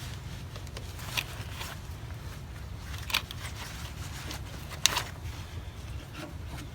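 Three sharp metallic clicks a couple of seconds apart, from a wrench on a fuel line fitting as it is tightened, over a steady low hum.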